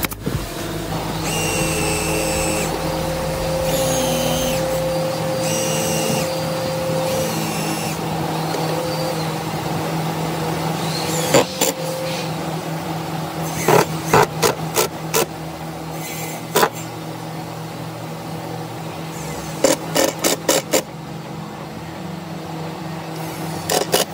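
A workshop power tool running with a steady hum and a higher whine that comes and goes several times in the first seconds. Later come clusters of sharp knocks in quick succession on the wood.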